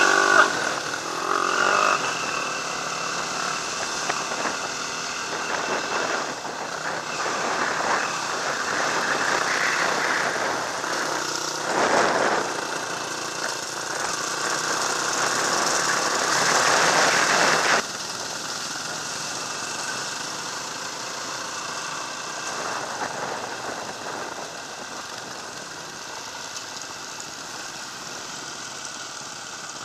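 Dirt bike engine running while riding, mixed with wind rush on the bike-mounted camera's microphone. The level drops suddenly about two thirds of the way in and stays lower after that.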